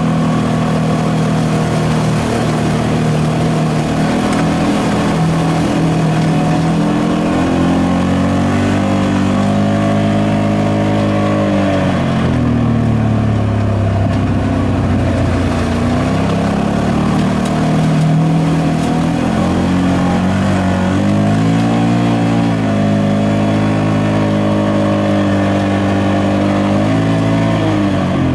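Side-by-side UTV engine running under varying throttle, its pitch rising and falling several times as it speeds up and eases off over rough trail. Wheels splash through shallow creek water near the start.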